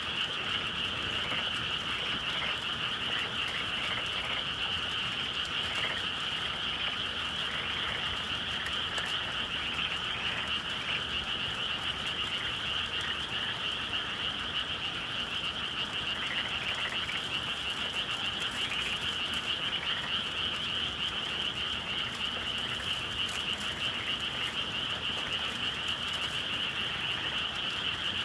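A dense chorus of many frogs calling at once, making a steady, unbroken wall of sound with no pauses.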